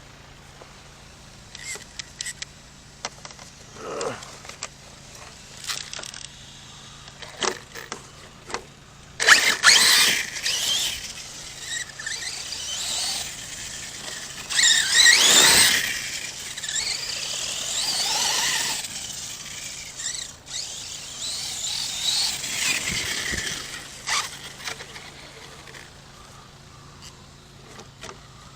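Arrma Kraton 6S electric RC monster truck running in dirt, its brushless motor whining up and down in several bursts of speed, with tyres scrabbling on loose ground. Scattered sharp clicks and knocks come in the first few seconds.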